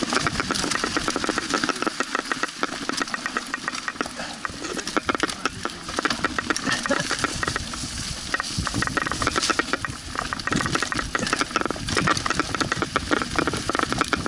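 Mountain bike descending a rough, partly snowy forest trail, its frame and parts rattling and clattering continuously over the bumps, over a steady rush of tyre and wind noise.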